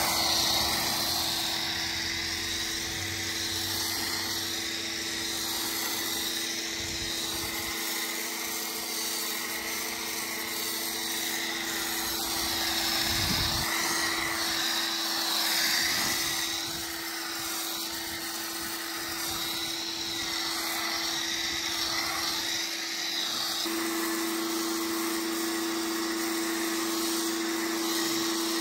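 Electric 1800 PSI pressure washer running steadily, its motor and pump humming under the hiss of a foam cannon spraying soap foam onto a car. The hum gets louder for the last few seconds.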